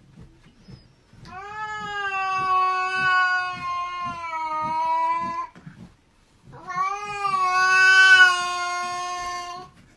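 A cat yowling: two long, drawn-out calls held at a steady pitch, each lasting three to four seconds, with a short break between them. It is a warning yowl from a cat with flattened ears squaring off against another cat.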